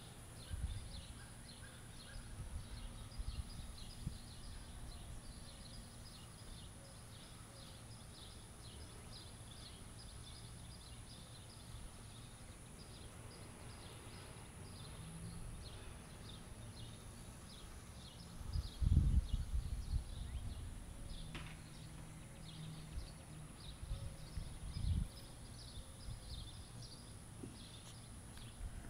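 Outdoor summer ambience: a steady run of short, high chirps, several a second, over a thin high hum, with a few low bumps of wind or handling on the microphone about two-thirds of the way through.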